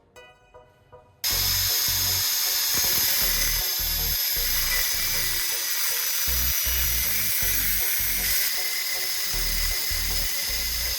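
A cutting wheel starts about a second in and grinds steadily through a spark plug's threaded steel end: a high whine over a harsh hiss. The plug is being turned by a drill while the wheel cuts it.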